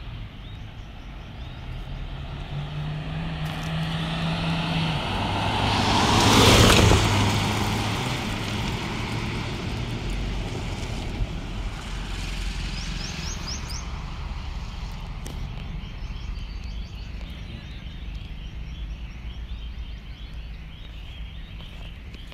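A vehicle passing close by at speed: engine and tyre noise swell to a sharp peak about six and a half seconds in, the engine hum dropping in pitch as it goes by, then fade away over steady background traffic noise.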